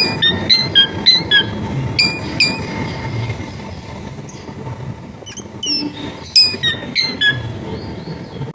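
Long-tailed shrike (cendet) singing: a rapid run of sharp whistled notes, each dropping steeply in pitch, in two clusters with a quieter lull in the middle. A low background rumble runs underneath.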